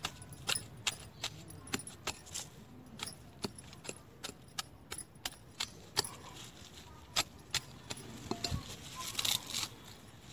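Irregular sharp clicks and snaps, about two or three a second, as roots are cut and pulled off a freshly dug taro corm. A stretch of rustling and scraping comes near the end.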